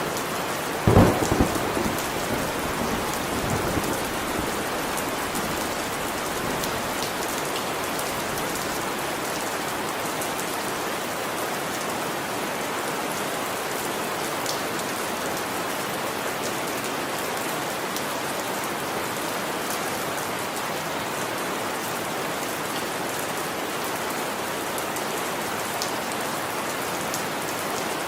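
Steady rain falling, with a sharp clap of thunder about a second in that rumbles on for a few seconds.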